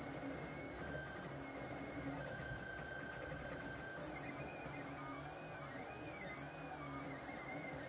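LulzBot TAZ 5 3D printer running a print: its stepper motors whine in steady tones that shift pitch as the head moves, and about halfway through they glide up and down in arcs.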